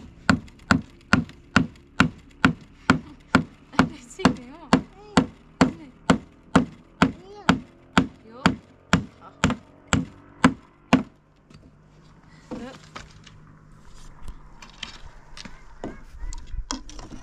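A hammer driving nails into wooden boards, with sharp blows about twice a second for some eleven seconds before they stop.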